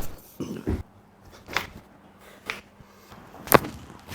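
Chiropractic adjustment: a series of about five short, sharp cracks and thuds roughly a second apart, from joints popping and the thrusts of the adjustment. The loudest crack comes about three and a half seconds in.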